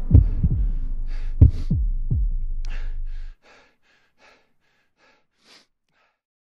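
Film-trailer sound design: a low drone with deep booms that drop in pitch, five or so of them, cutting off suddenly a little over three seconds in. Faint short hissy ticks, about three a second, follow until near the end.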